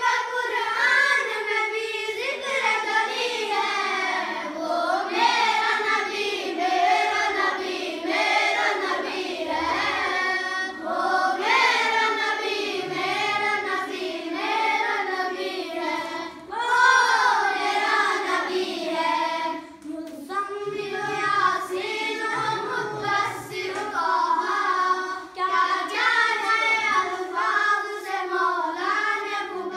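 A boy singing a naat, an Islamic devotional song in praise of the Prophet, unaccompanied. His high child's voice carries a continuous melodic line with short breaks between phrases.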